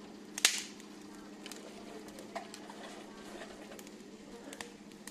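Dry twigs being fed into a small wood fire: one loud, sharp snap about half a second in, then a few lighter cracks and crackles.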